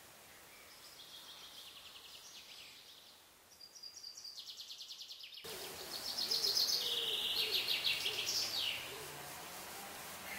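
Small forest songbirds singing: a run of rapid, high trilled phrases, one after another, over a faint hiss of woodland background. The song becomes louder about halfway through, ending in a fast falling flourish.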